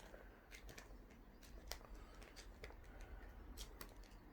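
Faint, irregular paper rustles and light clicks of a thin instruction booklet's pages being turned.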